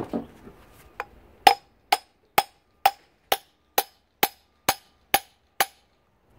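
Ten steady hammer blows on metal, about two a second, each with a short ring, after one lighter tap. They are knocking at the pulley on the lawnmower motor's shaft to drive it off, and it does not move.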